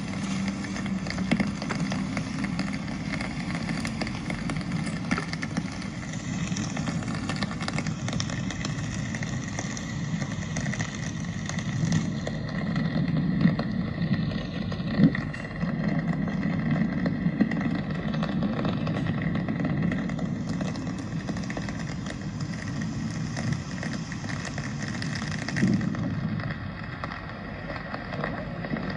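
Rainy city street ambience: a steady wash of rain and passing traffic noise, with no single event standing out.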